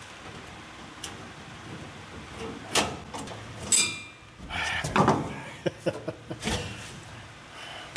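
Louvered rear trim panel being worked into place by hand: scrapes, clicks and knocks as it is shifted and pressed against the body, busiest about halfway through with a quick run of clicks after.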